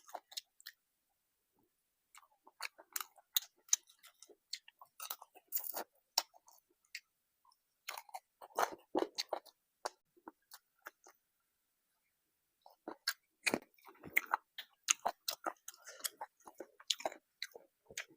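Close-miked chewing and biting of rice with curry and a crunchy bite or two: wet smacking and sharp clicks in several bouts, with short near-silent pauses between.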